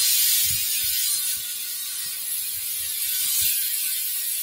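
Compressed air hissing from a compressor hose into a tubeless car tyre through the valve stem with the valve core removed, inflating the tyre to seat its beads on the rim. Irregular low knocks sound under the steady hiss.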